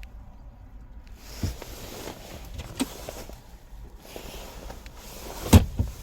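Scattered handling knocks and clicks on a car, with a loud dull thump followed by a smaller one near the end.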